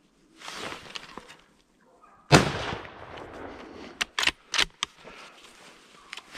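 A single loud gunshot from a boar hunter's gun about two seconds in, ringing out and dying away, after a short rustle. About a second and a half after the shot come four quick sharp clacks.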